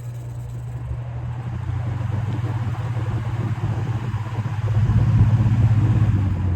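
Vintage Air King PL20E box fan with a GE motor and metal blades starting up on high: a steady motor hum under a rush of air that grows louder as the blades come up to speed, loudest about five seconds in.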